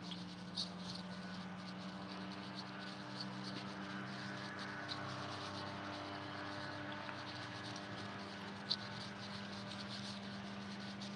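Faint steady low hum with light scattered ticks, and a sharper click near the end.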